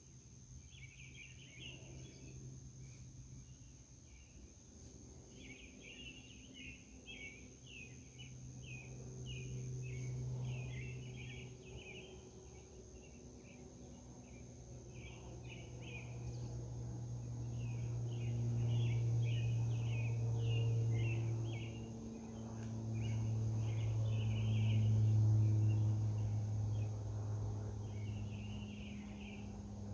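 A low droning hum with drifting pitches swells and fades several times, loudest in the second half. Beneath it runs continuous chirping of night insects and a steady high-pitched whine.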